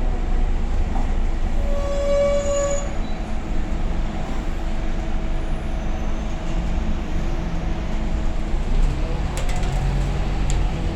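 Steady low rumble of heavy road traffic, with one horn blast about two seconds in that lasts about a second.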